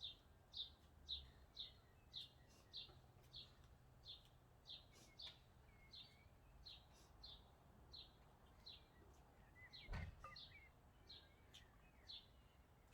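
A bird calling faintly, repeating a short high chirp about twice a second without a break. A single soft knock about ten seconds in.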